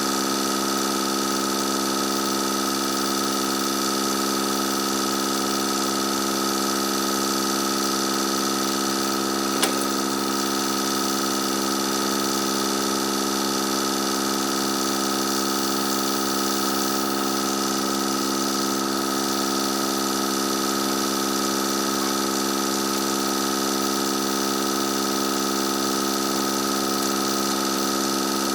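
Tractor engine running at a steady speed, its pitch and loudness unchanging, with a single sharp click about ten seconds in.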